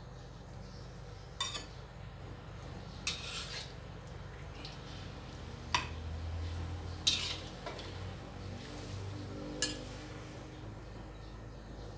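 Metal ladle clinking against a wok and a ceramic bowl while curry is ladled out: five separate clinks a second or two apart, the loudest about seven seconds in.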